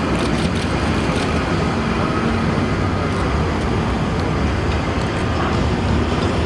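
Heavy vehicle engines running steadily under a loud, even wash of noise.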